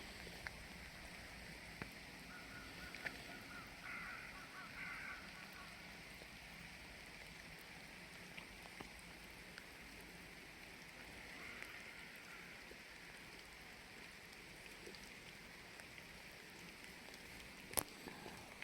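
Faint outdoor background hiss with a short run of bird calls about three to five seconds in and a fainter call around eleven seconds, then a single sharp click near the end.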